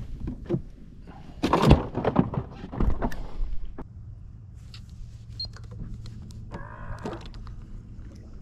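Knocks and clattering of handling gear aboard a small fishing boat, then a steady low hum of a small electric motor starting about four seconds in, with a brief squeak a little before the end.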